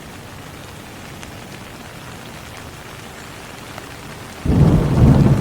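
Steady rain falling, then about four and a half seconds in a loud, low roll of thunder starts suddenly and keeps rumbling.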